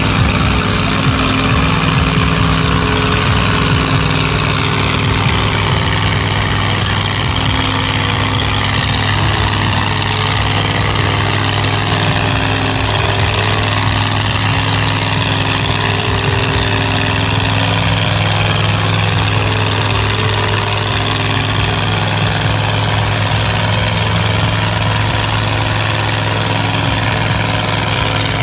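Engine of a lifted mud truck with a Volkswagen bus body running at steady revs as it crawls through a mud pit on oversized lugged tyres.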